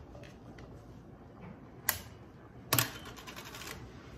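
Clicking and crackling from a jar of Prego pasta sauce being opened by hand. There is one sharp click about two seconds in, then a quick run of clicks for about a second.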